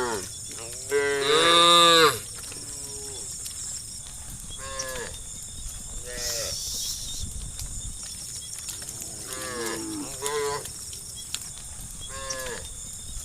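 A herd of cattle mooing, with several cows calling one after another about half a dozen times. The loudest is a long moo about a second in.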